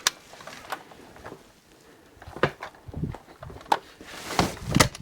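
Scattered clicks and knocks of movement and handling, with a low thud about three seconds in and a cluster of louder knocks and thuds near the end.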